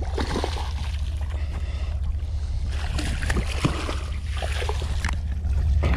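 Small fishing boat on the water: a steady low rumble with scattered light knocks and clicks, busiest around the middle.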